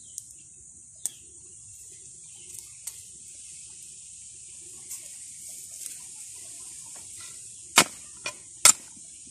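A long iron digging blade striking dry, stony garden soil while a planting hole is dug: a few scattered sharp knocks, the two loudest about a second apart near the end, over a steady high hiss.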